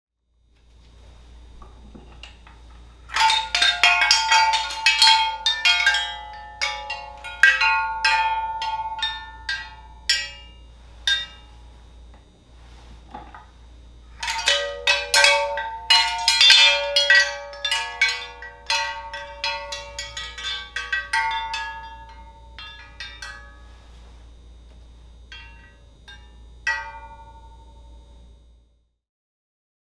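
Metal wind chime (windbell) of hanging metal plates ringing as the plates are set swinging and strike one another: a dense flurry of bright, ringing chimes that thins out, then a second flurry about ten seconds later that dies away the same way.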